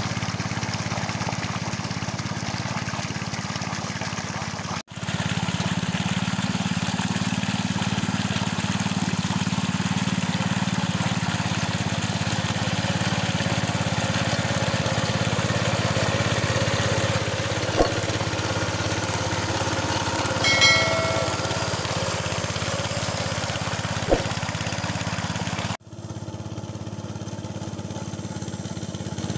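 Small old engine of a Capung Metal mini rice-field tractor running steadily. The sound drops out abruptly for an instant about five seconds in and again near the end, and there are two sharp clicks and a short pitched sound in the middle.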